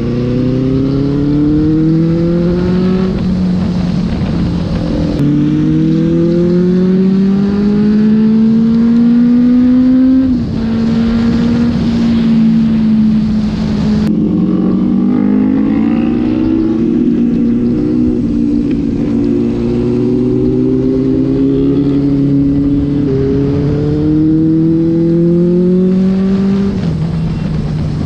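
Benelli TNT 600i inline-four motorcycle engine accelerating and shifting up through the gears. Its pitch climbs steadily and then drops back at each shift, several times over.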